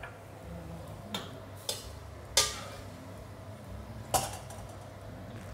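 Kitchen utensils knocking against cookware: four short, sharp clinks, the loudest about two and a half seconds in, over a low steady hum.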